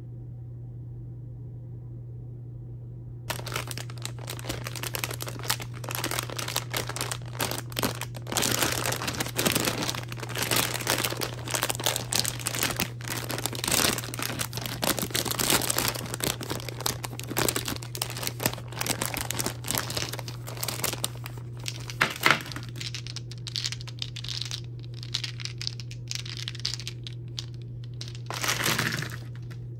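Plastic candy wrappers crinkling and tearing as a Dubble Bubble gumball bag is opened and handled, starting about three seconds in, with one sharp crackle about two-thirds of the way through and a short burst of rustling near the end.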